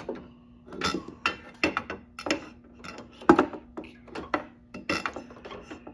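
A fluorescent tube being fitted into the lampholders of a troffer: a string of irregular clicks, knocks and scrapes against the metal fixture, the loudest a little past three seconds in. Under them runs a steady low hum from the fixture's old magnetic ballast.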